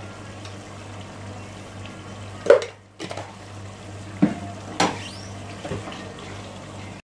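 Chicken simmering in masala in an aluminium pot, a soft steady sizzle and bubbling, with a few sharp knocks against the pot, the loudest about two and a half seconds in, as a slotted spoon goes in to stir.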